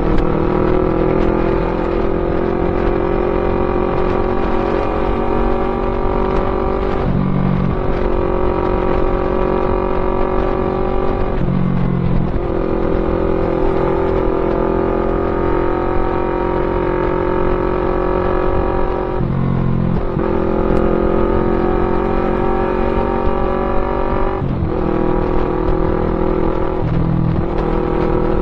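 Yamaha MT-03 motorcycle engine running through a Pure Sound aftermarket full-system exhaust, a loud, fairly steady engine note broken by several brief dips where the pitch drops and picks up again.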